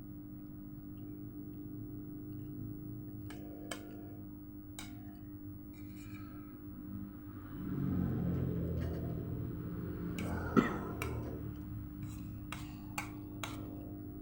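Spoon clicking against a plate several times while eating, with one louder ringing clink about ten and a half seconds in, over a steady low hum.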